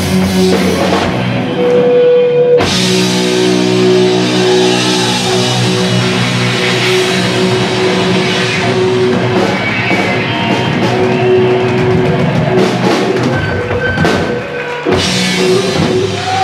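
Live rock band playing an instrumental passage: electric guitars, bass and a drum kit with cymbals. About two and a half seconds in, the whole band comes in together with a sudden loud hit.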